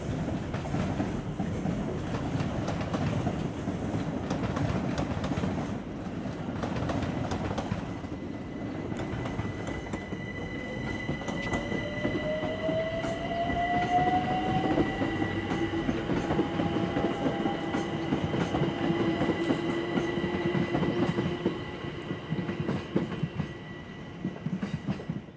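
London Overground electric train running past on the rails with a steady rumble. A high steady whine joins about nine seconds in. An electric motor whine then rises in pitch over several seconds as the train picks up speed, and it settles into a steady hum.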